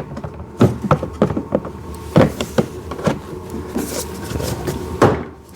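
Hard plastic parts of a kids' ride-on toy car knocking and clicking together as the windscreen is handled and fitted into place, with about a dozen irregular sharp knocks.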